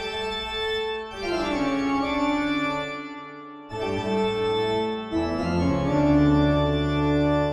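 Organ music in a spooky horror-film style: a series of sustained chords that change every second or two, ending on a long held chord over a deep bass note.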